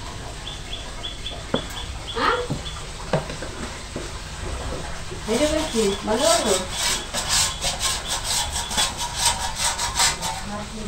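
A hand rubbing oil around a stainless-steel plate: rapid, repeated swishing strokes from about halfway through, after a few light clicks in the first half.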